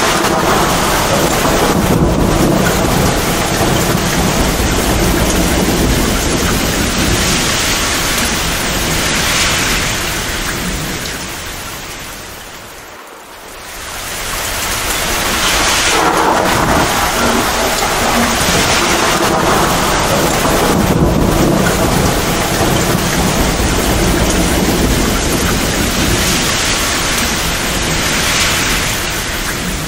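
Heavy rain pouring down with rumbling thunder. About halfway through, the sound dips sharply, nearly fading out, then swells back up. Near the end it begins to fade again.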